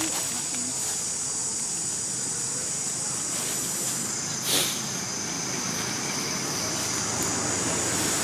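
Steady outdoor forest ambience: a continuous high hiss over a low steady rumble, with one short, sharp noise about four and a half seconds in.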